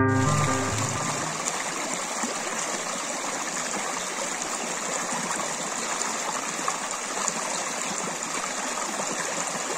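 Shallow mountain stream running fast over stones between snowy banks: a steady rushing and babbling of water.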